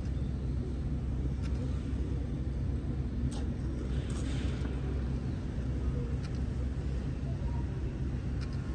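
Steady low rumble with a few faint clicks over it.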